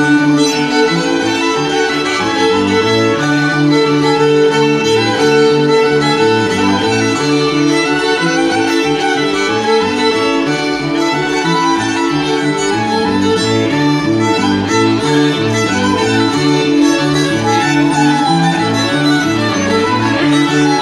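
Live folk string-band music: a violin plays the lead over a held drone note and a bass line that steps in a steady rhythm.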